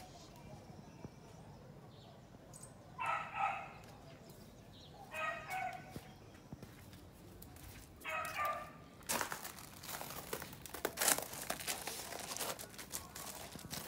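Three short animal calls a couple of seconds apart, each under a second long, then from about nine seconds in a run of crunching and scraping on gravel.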